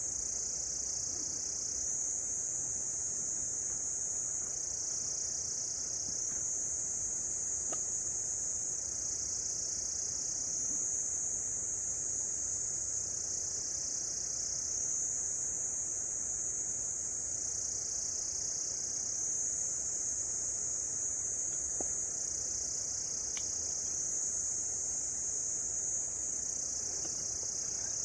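Insects singing in a continuous high-pitched drone that dips slightly in pitch and comes back about every two seconds.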